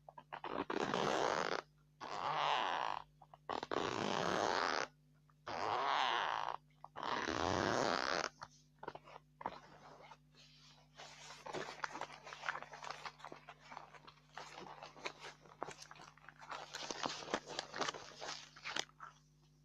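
Close-miked ASMR handling sounds: four long scratchy strokes of about a second each, then from about halfway a long run of fast crackling, crinkling clicks.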